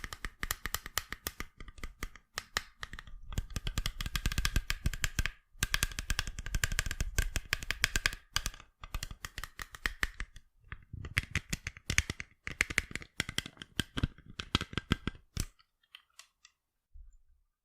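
Fingers tapping rapidly on sunglasses in fast runs of clicks with short pauses between them. The tapping stops about fifteen seconds in, leaving a few faint taps.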